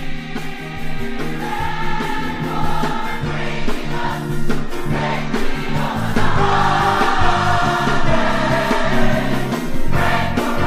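Gospel choir singing over instrumental backing music.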